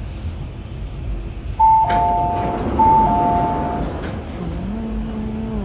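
MTR train cabin running noise with an on-board electronic chime: two tones, high then lower, sounded twice, announcing arrival at the next station. Near the end a recorded woman's announcement begins.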